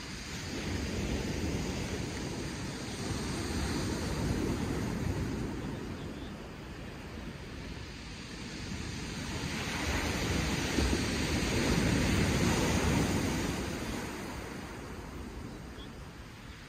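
Surf breaking and washing over a shingle beach, swelling twice, most strongly about ten seconds in, with wind buffeting the microphone.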